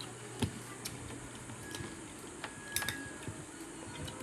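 Eating sounds: a few scattered small clicks and smacks of someone chewing adobo chicken feet, over a low steady hum.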